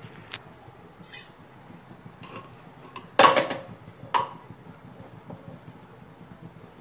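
A metal ladle clinking and scraping against the inside of a metal pressure cooker as it is worked through boiled mince and lentils to fish out the whole spices. There are a few sharp knocks, the loudest about three seconds in and another a second later.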